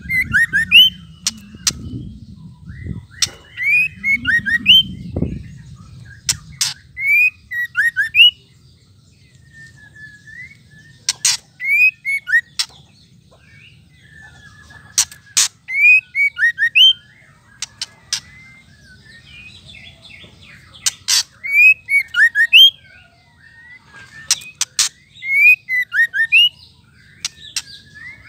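White-rumped shama calling in repeated bursts every three to five seconds: sharp clicking 'ketrek' notes mixed with quick rising and falling whistled notes. This is the ketrekan call that keepers play to rouse male shamas into full song.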